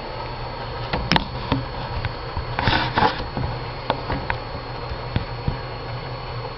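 Handling noise from a handheld camera: scattered sharp clicks and a short rustle about three seconds in, over a steady low hum and a faint high whine.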